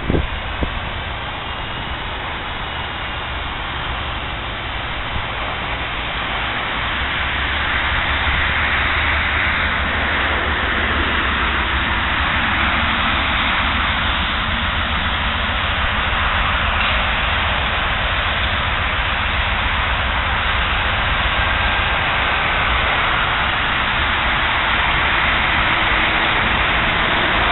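Approaching Norfolk Southern diesel freight locomotives: a steady rumble that grows louder about a quarter of the way in, then holds.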